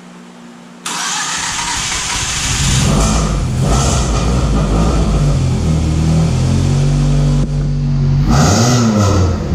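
Scion tC's four-cylinder engine starting about a second in, then running loud through a new aftermarket exhaust, loud even with its silencer fitted. Near the end it revs up and back down once.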